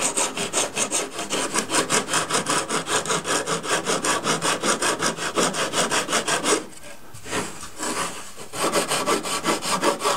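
Flat sanding block rubbed back and forth in quick, even strokes along the wooden stringers and bulkhead edges of a model boat hull frame, fairing them flush. The strokes break off twice briefly about two-thirds of the way through.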